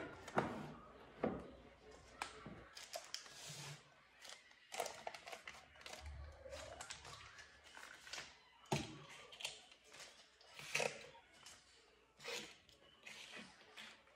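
Plastic food packets rustling and crinkling as they are handled and set onto a cabinet shelf, with light knocks of packages being put down at irregular moments.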